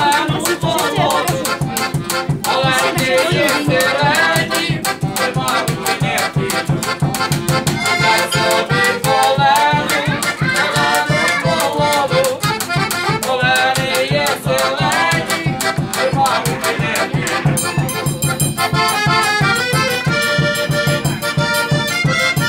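Instrumental folk music led by an accordion over a steady beat, with no singing.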